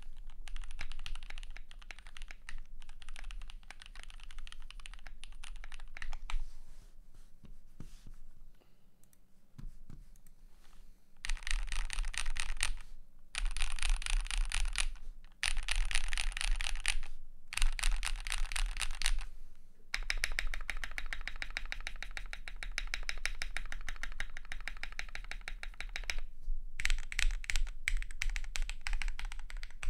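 Fast typing on a custom 60% mechanical keyboard with lubed, filmed Gateron PRO Yellow linear switches on an aluminium plate, PBT keycaps and foam-dampened case. Rapid key strokes run in bursts with several brief pauses, softer for a few seconds about a quarter of the way in.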